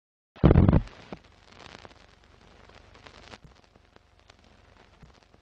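Old-film countdown-leader sound effect: a loud low thump about half a second in, then faint film crackle with scattered pops and clicks.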